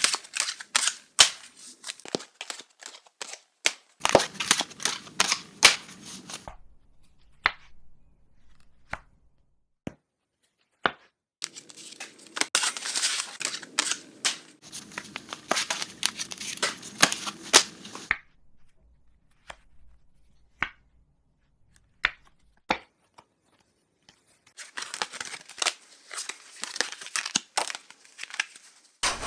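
Playing cards being handled: three runs of rapid flicks, snaps and rustling, as in shuffling and dealing, with sparse single snaps between them.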